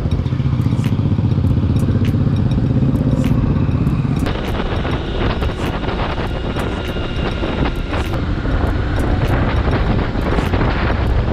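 Yamaha R15S single-cylinder motorcycle engine running as the bike is ridden. About four seconds in, the deep engine rumble gives way to a broad rushing of wind and road noise as the bike picks up speed.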